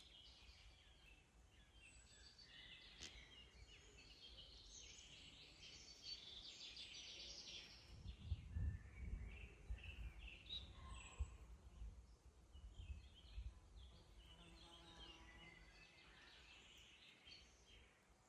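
Faint mixed chorus of several woodland songbirds singing, with overlapping chirps and warbling phrases. A low rumble rises under them for a few seconds in the middle.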